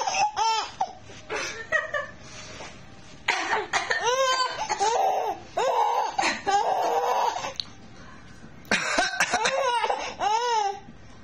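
A person coughing in short fits and a baby laughing in response, several rounds of coughs and high-pitched baby laughter with brief pauses between.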